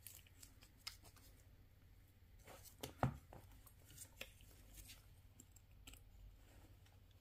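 A scattering of small clicks and snaps from handling a Mercedes-Benz key fob and its plastic housing, the loudest about three seconds in.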